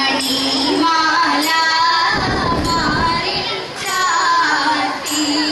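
Girls' voices singing a Thiruvathira song, the Malayalam folk song that accompanies the group dance, in a wavering melodic line.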